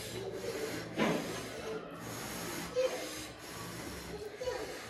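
A person eating rice and chicken curry by hand: close chewing and mouth sounds, with fingers mixing rice on a steel plate. A sharper sound stands out about a second in.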